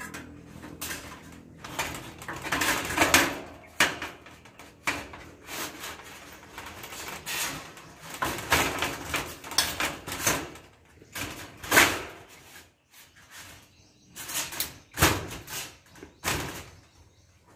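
Thin sheet-metal wall cladding scraping and knocking as hands push and slide it into place along its edge, in irregular strokes with several louder scrapes.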